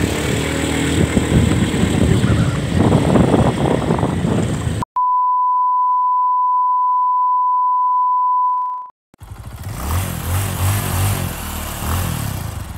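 Vehicle engine and wind noise while riding, cut off abruptly about five seconds in by a steady single-pitched beep tone lasting about four seconds. After a short silence a rumbling noise returns.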